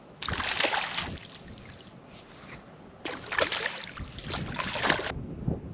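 Water splashing in two bursts, the first about a second long and the second about two seconds long, while a small hooked estuary perch is brought in.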